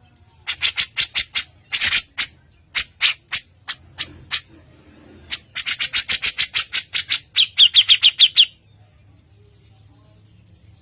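Songbird calling in bursts of sharp, harsh chip notes, several to a second, with a quicker rattling run in the middle and a short series of rapid rising chirps. The calls stop about two-thirds of the way through.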